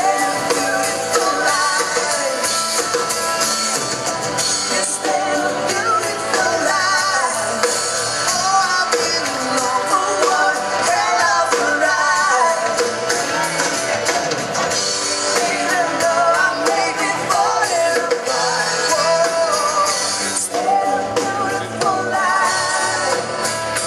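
Live rock band playing: electric guitars, bass and drum kit, with a lead singer.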